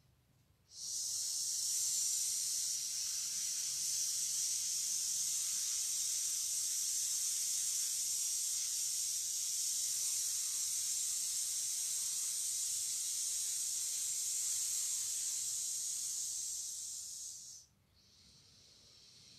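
A woman exhaling one long, steady 'sss' hiss through her teeth, the Metal element's sound in a Do-In forward-bend stretch. It begins about a second in, holds for about seventeen seconds and stops near the end.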